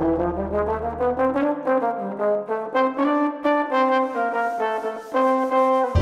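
Instrumental background music: a melody of quick, separate notes over a low held note that drops out about a second and a half in.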